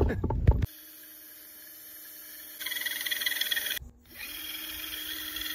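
Cordless drill running steadily with a metal bushing spinning in its chuck as a makeshift lathe, while a hand file held against the part rasps over the motor hum from about halfway in. The drill stops briefly about four seconds in and starts again.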